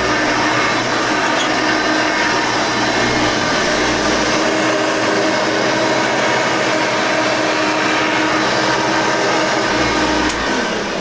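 Hoover Elite 5.2-amp upright vacuum cleaner running steadily. About ten seconds in it is switched off and its motor starts to wind down.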